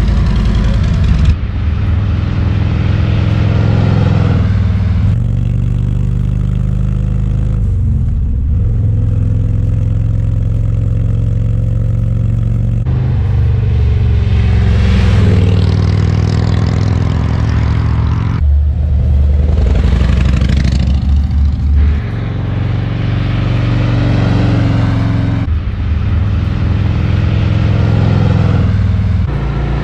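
Harley-Davidson Road Glide Limited's Milwaukee-Eight 114 V-twin running through 4.5-inch Rinehart slip-on mufflers, heard in several short cuts: running by the bike, then riding past with the pitch rising and falling as it accelerates.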